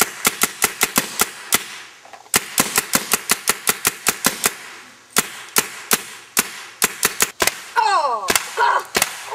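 Piranha GTI paintball marker firing in quick strings of sharp pops, several shots a second, with short pauses between strings. About eight seconds in, a person's voice cries out with a falling pitch.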